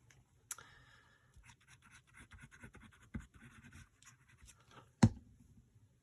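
Light scratching and rustling of a tool working over paper, with a sharp tap on the work table about five seconds in.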